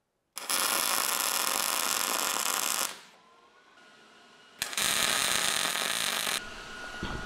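Electric arc welding on a structural steel landing frame: two bursts of steady crackling, about two and a half seconds and then about a second and a half long, with a short pause between.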